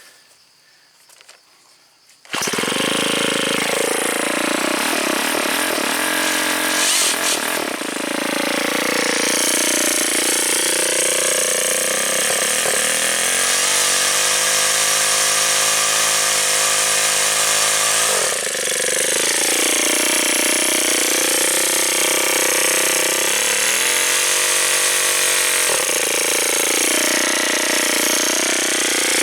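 Ryobi S430 four-stroke trimmer engine driving its chainsaw attachment at high revs. It starts suddenly about two seconds in and runs loud and steady, its pitch sagging and recovering several times, as when the chain is loaded by cutting a limb.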